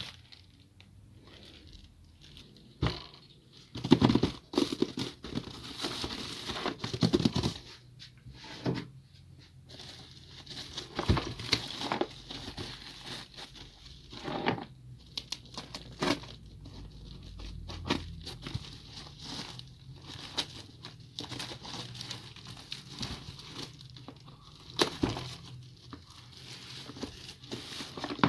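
Toy packaging being opened by hand: irregular tearing, crinkling and rustling with small knocks. It is loudest a few seconds in.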